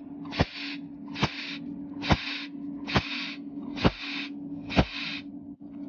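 Cold welding machine firing spot-weld pulses through its tungsten torch: six sharp snaps a little under a second apart, each followed by a short hiss, over a steady low hum. The pulses lay overlapping spots across a wide gap without filler wire.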